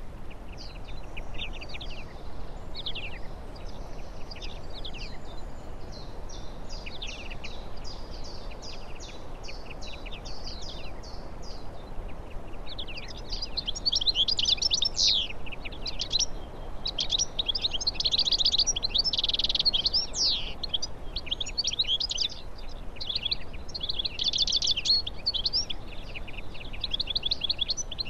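Small songbirds chirping and twittering, with short calls and quick trills overlapping, growing busier and louder about halfway through, over a steady low background hiss.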